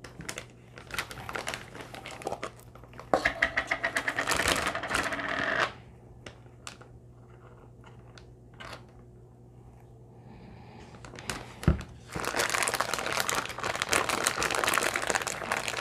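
Zip-top plastic bag crinkling and rustling as hands handle it, pouring sauce in and working it around raw quail. It comes in two spells, through the first six seconds and again from about twelve seconds on, with a quieter stretch between and a single sharp knock just before the second spell.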